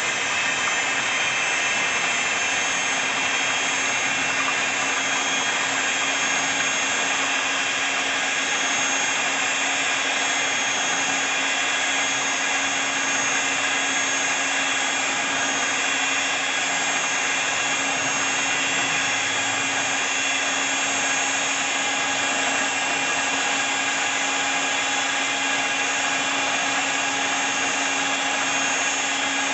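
Handheld electric mixer running at a steady speed, its beater whisking milk in a small steel cup: an even motor whine that does not change.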